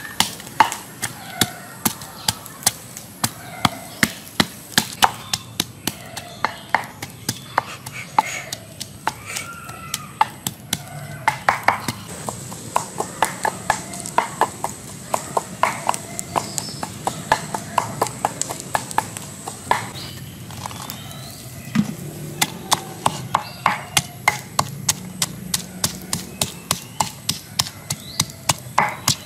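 Wooden pestle pounding garlic and red chillies in a wooden mortar: hollow knocks at about two to three a second, pausing briefly about twenty seconds in.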